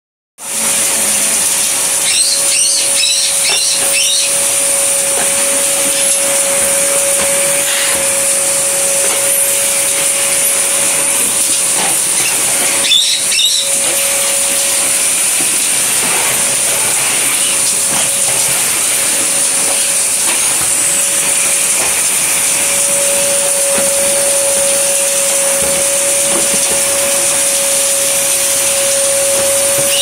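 Drum-type canister vacuum cleaner running, a steady rushing noise with a steady whine, as its floor nozzle is pushed over a tiled floor and a rug.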